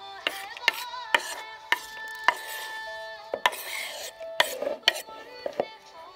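Knife scraping and knocking on a wooden chopping board as chopped potato, tomato and green chilli are pushed off it into a plastic bowl: a string of sharp knocks about every half second, with a longer scrape a little past the middle.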